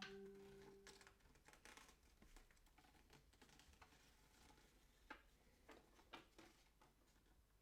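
Faint handling of a small paper instruction manual: scattered light clicks and rustles, after one sharp click at the start.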